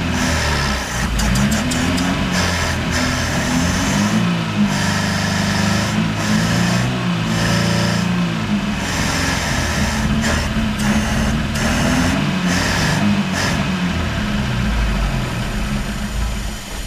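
Chevrolet Chevette's four-cylinder engine running and being revved up and down after 26 years parked. It runs on a carburetor that draws a lot of fuel, which the mechanic takes for a clogged jet. The engine dies away near the end.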